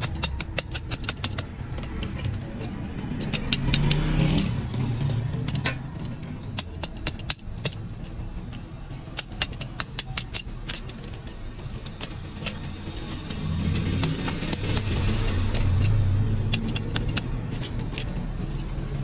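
Metal tongs clinking against freshly cast metal fries-cutter parts as they are picked out of the broken mould, in quick runs of sharp metallic clicks. A steady low motor hum runs underneath.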